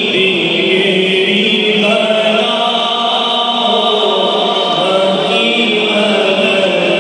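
A group of men's voices chanting together in unison, a devotional chant with long held notes, led by a voice on a microphone.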